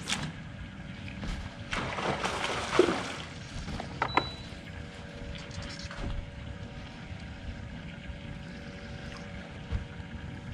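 Steady low hum of a bass boat's bow-mounted electric trolling motor, with wind on the microphone. A rushing swish about two seconds in and a couple of sharp clicks about four seconds in come from the rod and reel as a jig is cast and worked.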